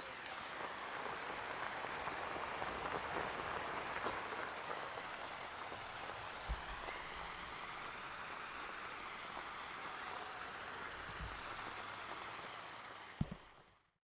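Flameless heater in an OMeals self-heating meal bag fizzing and hissing steadily as it steams the food, with a few low knocks of the bag being handled, the sharpest near the end.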